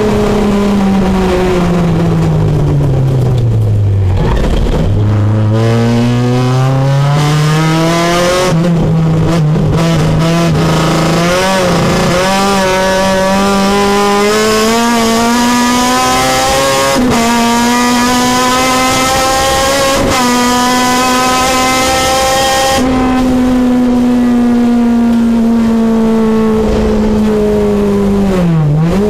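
Supercharged Honda K24 four-cylinder of a race-prepared Civic at full throttle, heard from inside the cabin. The revs fall steeply about four seconds in under braking and downshifts, then climb again through several upshifts, hold high near the end and drop away at the very end.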